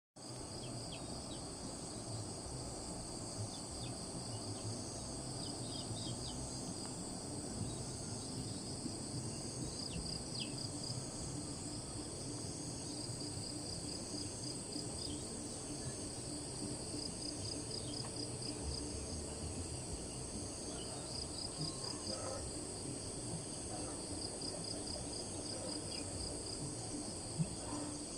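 Insects chirring steadily in a high, evenly pulsing drone, over a low background rumble.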